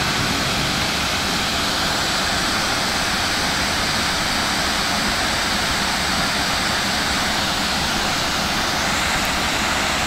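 Waterfall pouring over rocks into a pool: a steady, even rush of falling water.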